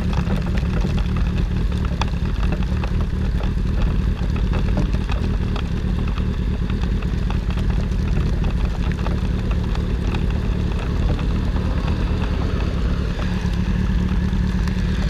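Motorcycles riding through heavy rain: a steady rush of wind and engine noise on the rider's camera, with many small ticks of raindrops.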